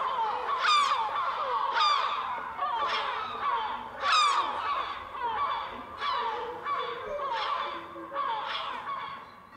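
A colony of gulls calling over and over, several birds overlapping, with a new call about once a second.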